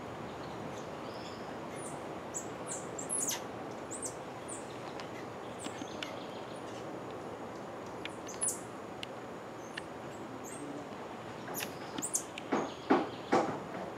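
Scattered short, high-pitched chirps and peeps, some sliding down in pitch, over a steady forest hiss. Near the end, four or five louder, sharper sounds come in quick succession.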